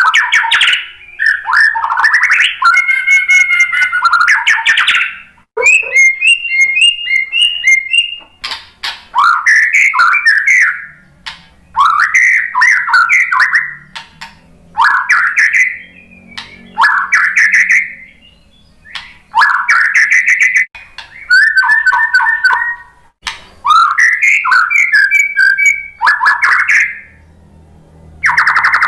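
White-rumped shama singing: a long run of loud, varied whistled phrases of about a second or two each, some sliding and some fast repeated-note trills, with short pauses between them.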